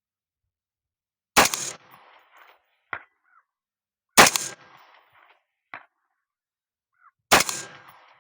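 AR-15 in .223 firing three shots about three seconds apart. The first two are each followed about a second and a half later by a faint clang: the bullet striking a steel target 400 yards away.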